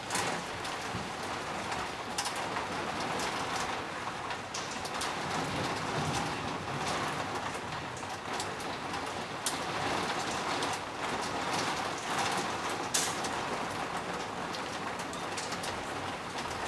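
Steady rain falling on tree foliage: an even hiss with scattered sharper drop hits. A bird calls partway through.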